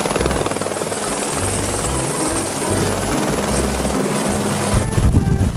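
Helicopter rotor sound, a fast steady chopping.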